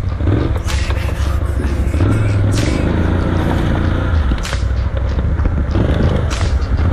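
ATV engine running and revving up and down as the quad bike climbs over rocks, with several sharp clatters and scrapes.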